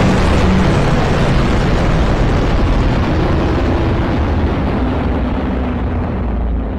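A long, loud, rumbling creature roar with a wavering growl in it, slowly fading out.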